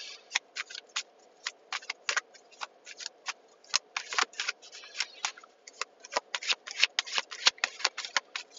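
A run of quick, irregular sharp clicks and taps, a few a second, over a faint steady background hiss.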